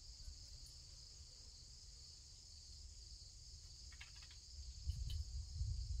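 Steady, even, high-pitched buzz of an insect chorus. A low rumble rises and a few faint clicks sound over the last two seconds.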